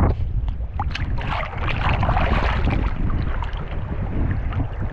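Wind rumbling on the microphone, with seawater sloshing and splashing close to it, loudest about two seconds in.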